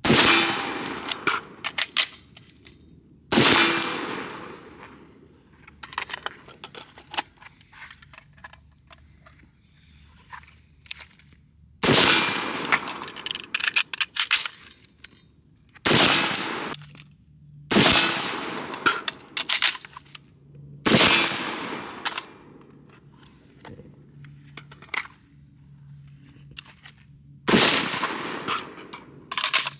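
Single rifle shots from a 14.5-inch BCM AR-15 fitted with a Surefire muzzle brake, about eight of them a few seconds apart, each trailing off in a long echo. Between the shots come the small clicks and rattles of reloading, the longest stretch of them after the second shot.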